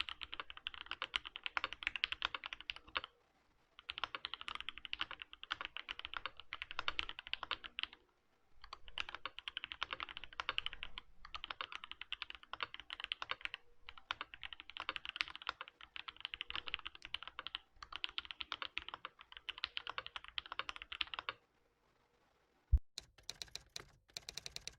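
Fast typing on a Matrix Noah mechanical keyboard with lubed and filmed Original Aspiration linear switches and GMK Oblivion keycaps, a dense run of keystroke clacks broken by two short pauses. The typing stops about three-quarters of the way through, followed by one sharp click and a few scattered clicks near the end.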